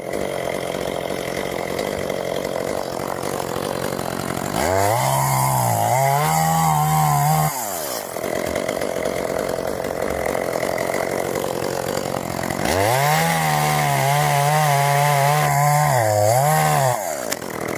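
Chainsaw opening up to full throttle and cutting into oak twice, each burst about three seconds long, starting about five and thirteen seconds in; the engine pitch wavers under load, then falls back to idle. A steady engine hum runs underneath.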